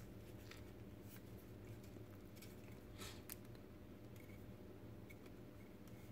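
Near silence: a steady low hum of room tone with a few faint clicks and rustles from small plastic robot-kit parts being handled, two slightly more distinct clicks about three seconds in.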